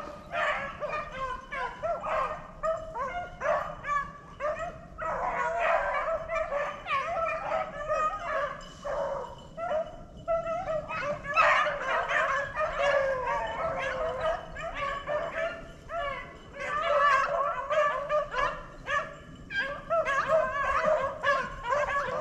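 A pack of beagles baying and yipping without a break, several voices overlapping: the hounds running a swamp rabbit's trail.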